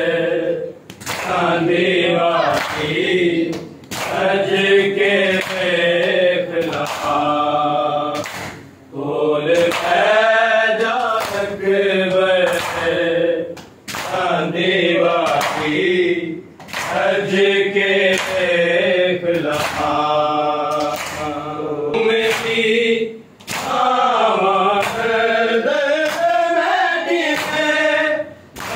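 A group of men chanting a noha, a Muharram lament, together in long sung phrases with brief pauses between them. Regular sharp slaps of hands striking chests (matam) keep the beat.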